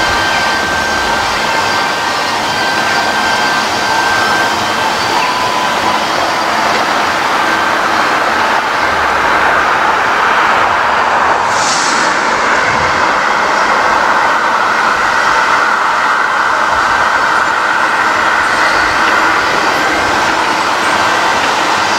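Class 45 'Peak' diesel locomotive with its Sulzer 12LDA28-B engine running steadily as it approaches, getting a little louder past the middle, with a brief high hiss a little after halfway.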